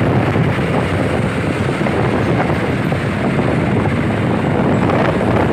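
Loud, steady vehicle engine rumble, an added sound effect for a toy container truck.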